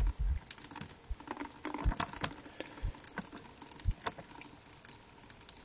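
Gasoline dripping from a carburetor's float-bowl overflow hose into a plastic tub after the drain screw is backed off: an irregular patter of small drops, with a few soft thumps about a second apart.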